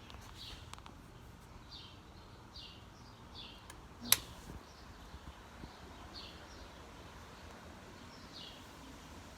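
A bird chirping in short, high, falling notes, repeated about once a second, over faint background hum. One sharp click sounds about four seconds in.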